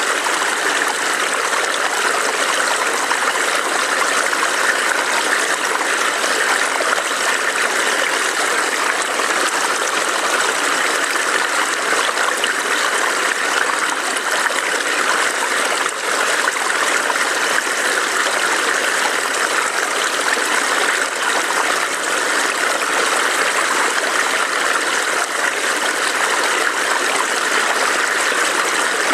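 A shallow forest stream burbling and trickling over rocks, a steady rushing with no pauses.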